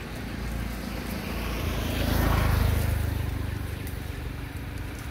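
A motor vehicle passing by on the road, its engine and tyre noise swelling to a peak about two and a half seconds in and then fading away.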